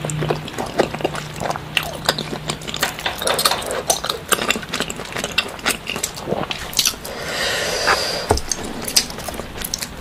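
People eating with their hands: close-up chewing, lip smacks, and small clicks of food and fingers on plates. A short rushing noise comes about three quarters of the way through.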